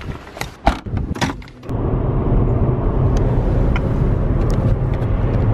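A few sharp knocks and clicks, then, suddenly, a steady low rumble of a car driving, heard from inside the cabin.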